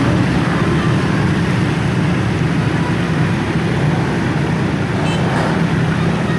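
Very heavy rain pouring down, a loud, steady rush of noise without breaks.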